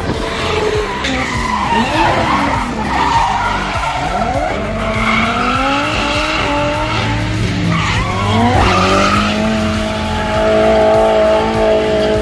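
Drift cars sliding through a corner, engines revving hard with the pitch sweeping up and down as the throttle is worked to hold the slide, over the screech of spinning, smoking tyres. In the last couple of seconds the engine holds a steadier high note.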